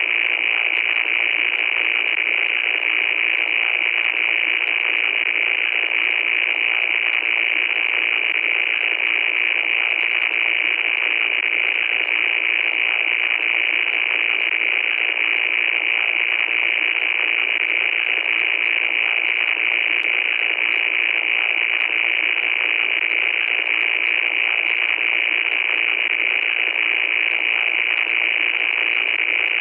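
Loud, steady static hiss, thin and high with almost no bass, unchanging throughout.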